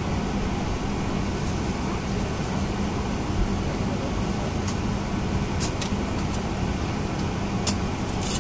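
Steady cabin noise inside a Boeing 737-900ER during pushback: an even rush of air with a low steady hum. A few sharp clicks come in the second half, the clearest near the end.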